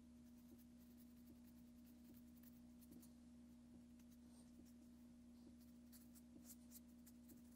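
Near silence: room tone with a faint steady hum and a few faint scattered ticks.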